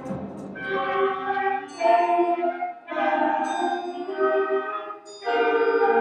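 A middle school concert band of woodwinds and brass playing a string of held chords, each lasting about a second, with brief breaks between them.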